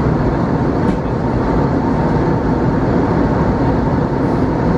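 Steady cabin noise inside an Airbus A320neo in flight: an even rumble and rush of engine and airflow noise, heavy in the low range.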